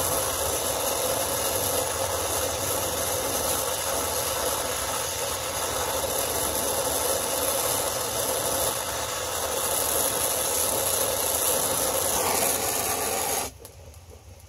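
Brazing torch flame burning with a steady rushing hiss while a copper pipe joint is brazed, then cut off suddenly near the end as the torch is shut off.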